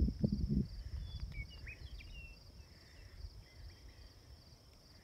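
Outdoor ambience: a steady high insect-like trill pulsing about three times a second, with a few short bird chirps between one and two seconds in. A brief low rumble at the start dies away within the first half second.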